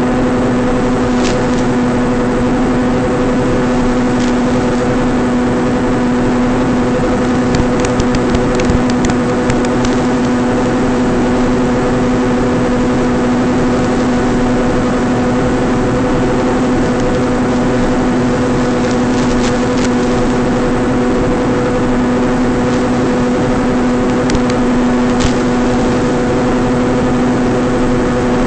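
Electric motor and propeller of a small FPV flying wing droning at one steady pitch under a haze of hiss, with a few faint crackles about a third of the way in.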